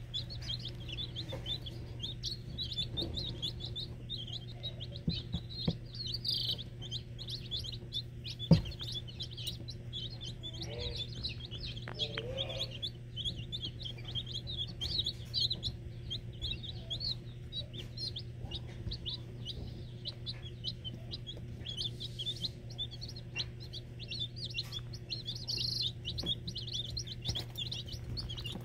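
A brood of chicks peeping constantly, many short high peeps overlapping, over a steady low hum. Once, about eight seconds in, a single sharp knock.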